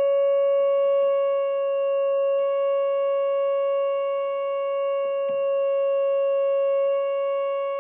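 Galanti (GEM) Caravan R6 portable electronic organ holding a single steady note without a break, with a few faint clicks about a second in and again past five seconds.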